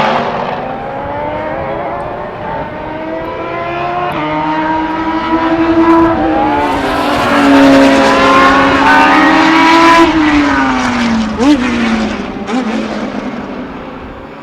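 Unsilenced historic racing car engine under hard acceleration, its pitch climbing through the revs with a drop at an upshift, then climbing again. It grows loudest as the car comes past, then falls in pitch and fades as it goes away.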